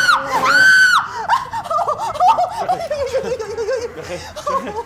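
A person screams twice, high and held, in the first second, then breaks into shrill, wavering laughter that tails off.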